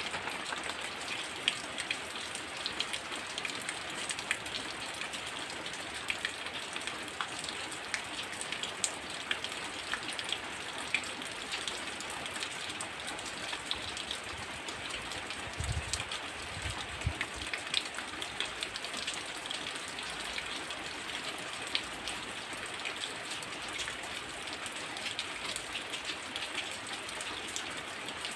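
Heavy rain falling steadily, with many sharp drops spattering and dripping on nearby surfaces. A short low rumble comes a little past the middle.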